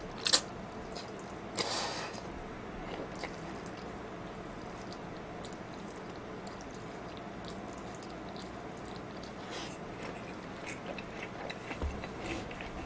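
Ramen noodles being slurped and chewed with chopsticks: two loud, short slurps in the first two seconds, then quieter chewing and small wet mouth noises.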